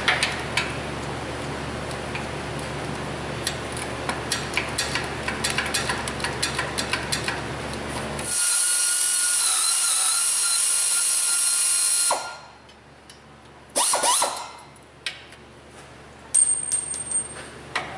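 Hand ratchet clicking in short runs on exhaust manifold bolts. About eight seconds in, a power tool runs with a steady high hiss and whine for about four seconds and stops sharply. A few metal clunks follow near the end.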